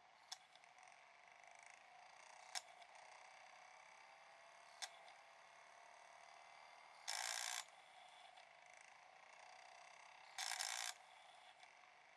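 DVD player making an abnormal noise: three sharp clicks a little over two seconds apart, then two louder half-second grating noises about three seconds apart, over a faint steady whir from the drive.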